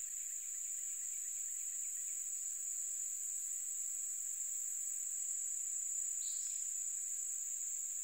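Late-summer crickets trilling in one steady, unbroken high-pitched chorus, with a fainter pulsing chirp in the first couple of seconds and a single short chirp about six seconds in.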